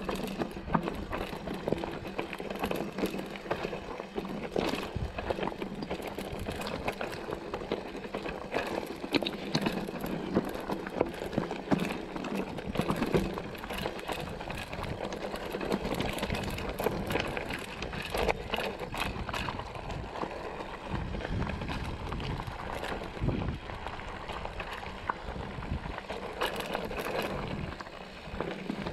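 Mountain bike rolling down a rocky singletrack: tyres crunching over loose stones, with the bike clattering and rattling in many quick knocks all the way down.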